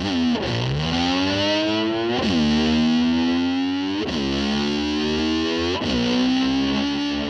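Heavily distorted electric slide guitar imitating a motorcycle revving. The pitch swoops sharply about every two seconds, then climbs or holds, over a rock band backing.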